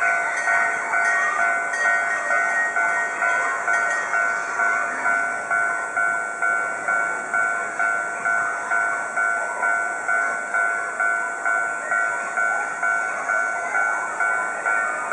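Japanese railway level-crossing warning bell ringing, an even electronic ding about twice a second.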